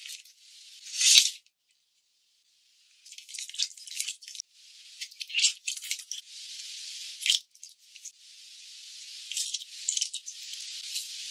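Ingredients going into a stainless steel stockpot of water: bursts of rattling as dried spices drop in, then a steady hiss of dark soy sauce pouring, and a spoon stirring in salt near the end. The sound is thin and tinny, with no low end.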